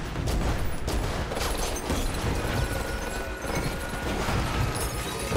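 Dense gunfire, many shots in quick succession, mixed with trailer music; a thin high tone holds through the second half.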